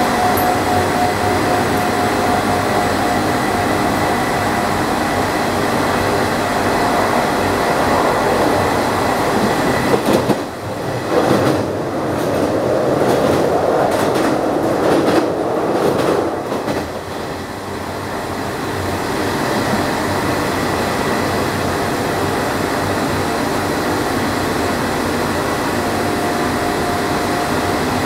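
Nishitetsu 5000 series electric train running at speed, heard from inside the car: steady wheel-on-rail noise with a constant motor whine. For several seconds in the middle, while crossing a river bridge, the sound changes to a deeper, hollower rumble before the usual running noise returns.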